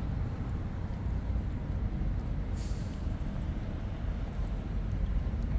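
Steady low rumble of city traffic, with a brief hiss about two and a half seconds in.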